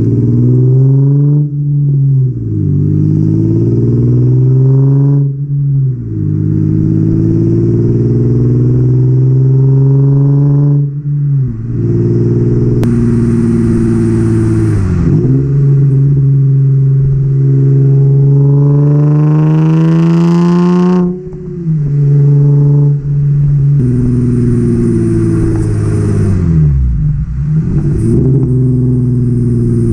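Nissan 350Z's 3.5-litre V6 through test pipes that replace the catalytic converters, leaving the exhaust nearly straight-piped, heard right at the tailpipe while driving. The note climbs under acceleration and drops sharply at each gear change, several times over. There is an exhaust leak, which the owner acknowledges.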